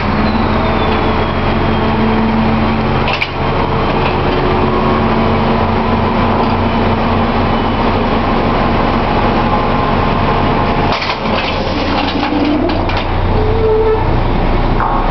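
Drilling rig machinery running with a steady low drone. Sharp metal clanks come about three seconds in and again in a cluster around eleven to twelve seconds in, from the crew handling the manual pipe tongs on the rig floor.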